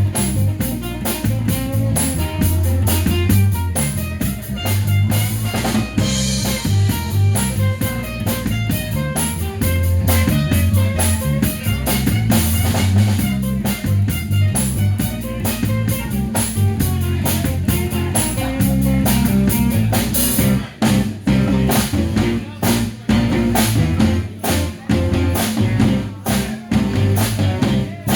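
Live band playing an instrumental stretch on drum kit, bass and guitar. About two-thirds of the way through, the band switches to short punched hits with brief gaps between them.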